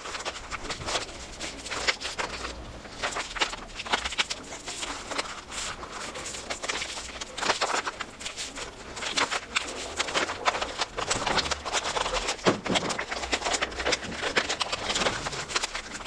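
A sheet of printer paper being handled and folded against a cloth-covered table, with irregular crackles and rustles as it is rolled, pressed flat and creased.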